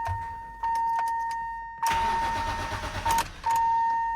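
Electric main fuel pump of an S54-swapped BMW E30 M3 priming as the ignition is keyed on and off. A steady whine with a hum beneath it switches on, fades and restarts several times as the fuel system is pressurised.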